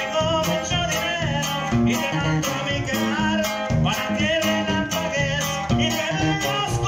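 A live band playing a Latin-American tune: electric guitar and accordion over another guitar and drums keeping a steady beat.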